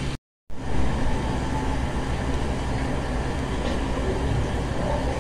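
Steady low rumble and hum of background noise, broken by a brief dead-silent dropout just after the start.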